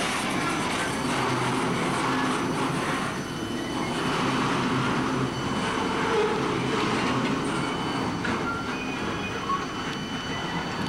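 Rear cars of a long freight train rolling past on steel wheels, a steady rolling rumble that eases a little near the end as the train moves off. The brakes on the second-to-last car are sticking.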